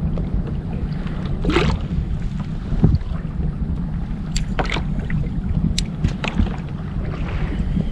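Steady wind rumbling on the microphone and water against a fishing kayak, with a brief rush about one and a half seconds in. A few sharp clicks follow as the rod and reel are handled.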